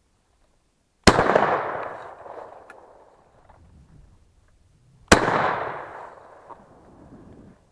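Two shotgun shots about four seconds apart at a woodcock in flight. Each is a sharp crack followed by a long rolling echo through the forest that fades over a couple of seconds.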